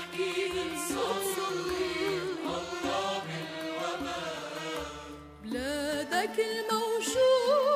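Arabic devotional song: a woman singing a slow, ornamented melody with heavy vibrato over instrumental accompaniment with a bass line. The music dips briefly about five seconds in, then a new sung phrase rises in.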